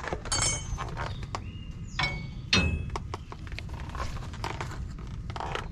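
Steel U-bolts clinking and knocking as they are handled and hooked over a leaf-spring helper spring: a string of short metallic clinks, some ringing briefly, with the sharpest knock about two and a half seconds in.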